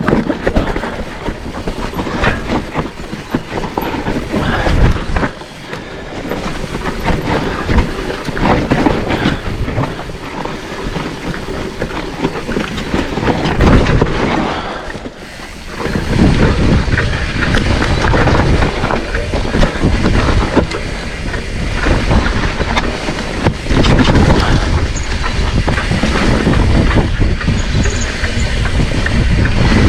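Mountain bike ridden over a rough dirt trail: tyres rolling and the bike rattling and knocking continuously over bumps, easing off briefly twice.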